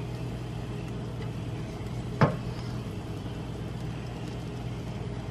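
A steady low hum with one sharp knock about two seconds in: the wooden spoon resting in a stainless steel skillet shifts against the pan while shredded cheese is sprinkled in by hand.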